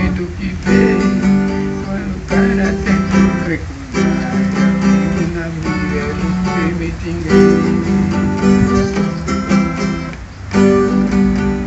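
Viola caipira, the Brazilian ten-string guitar, strummed in rhythmic chords, in phrases broken by brief pauses.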